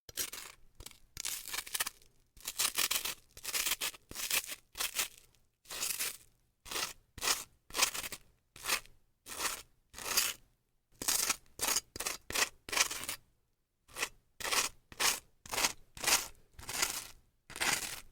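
Butter knife spreading butter over crisp grilled French toast: a steady series of short, dry scraping strokes, about one or two a second, each with a brief pause between.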